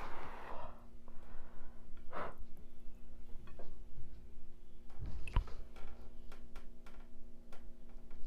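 Close-miked eating sounds from someone eating extra-spicy noodles: many small wet mouth clicks of chewing, with a few breathy exhales or sighs, one at the start, one about two seconds in, and another about five seconds in along with low thumps.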